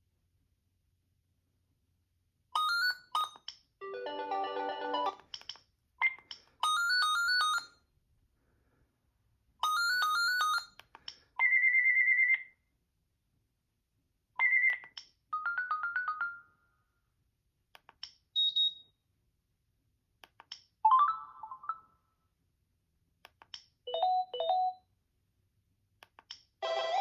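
Gigaset Comfort 552A cordless phone playing a series of short electronic ringtones one after another, each a quick melody of about a second or two with silence between. About halfway through, one of them is a single steady high beep.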